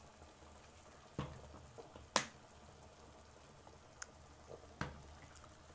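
Seafood sauce simmering in a frying pan, with faint bubbling and a few short sharp clicks, the loudest about two seconds in.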